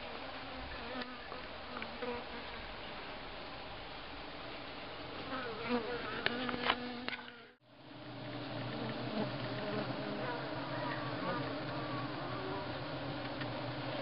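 Steady, dense hum of a newly settled honeybee swarm clustered in the hollow of a log hive. The hum drops out for a moment about halfway through, then carries on as before.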